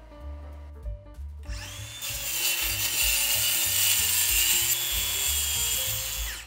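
Milwaukee circular saw spinning up about a second and a half in and cutting through birch plywood: a loud, steady saw noise with a high motor whine over it, which winds down near the end. Soft background music runs under it.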